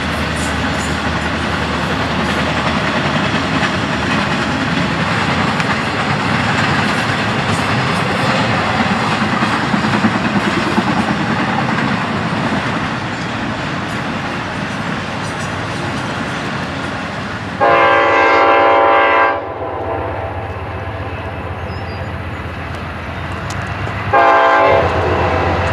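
Freight train rolling past, a steady rumble and rattle of wheels and cars on the rails. Later a locomotive air horn blows one long blast of about two seconds, then a short blast near the end.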